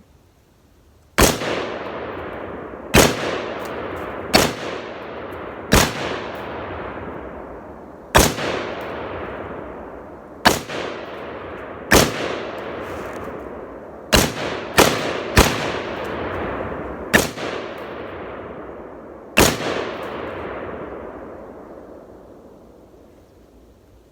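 A firearm fired about twelve times at an uneven pace, mostly one to two seconds apart, with a quick group of three shots about two thirds of the way through. Each shot is followed by a long echo that rolls away and overlaps the next, dying out after the last shot.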